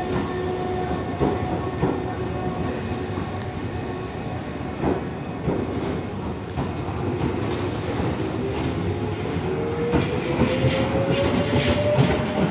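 Tobu 8000 series electric train pulling out of the platform and picking up speed. Its wheels click over the rail joints, and a motor whine rises steadily in pitch over the last few seconds as it accelerates away.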